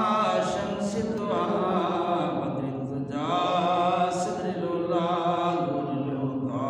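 A man's voice chanting an Islamic devotional recitation in two long, drawn-out melodic phrases with held, ornamented notes. The second phrase begins about three seconds in.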